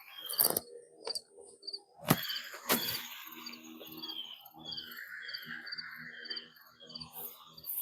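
Birds and insects chirping outdoors in short, repeated high notes. A few sharp knocks and handling noises come through, the loudest about two and two and a half seconds in.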